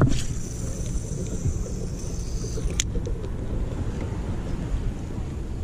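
Wind rumbling on an action camera's microphone, with a knock right at the start. A thin high hiss runs for about two and a half seconds and ends in a sharp click: braided line running off a spinning reel, then the bail snapping shut.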